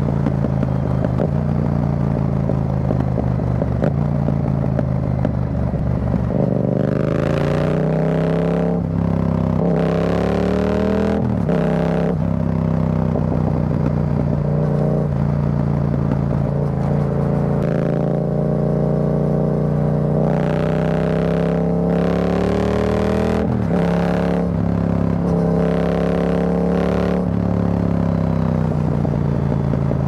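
Yamaha XSR700's 689 cc parallel-twin engine through an Akrapovic carbon full exhaust with the dB killer removed, heard on the move at road speed. The note is loud and steady, climbs in pitch about six seconds in, and then dips and picks up again several times as the throttle is closed and reopened.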